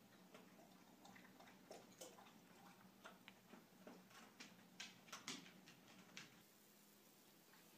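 Near silence: room tone with a faint low hum and scattered soft ticks, most of them in the second half.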